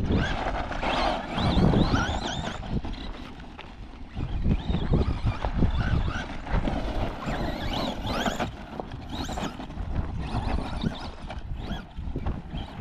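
Radio-controlled car motors revving up and down in short rising and falling whines as the cars are driven, over wind buffeting the microphone.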